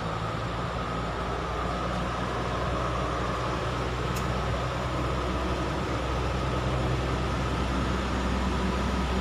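An engine running steadily: a low drone under an even hiss, growing slightly louder.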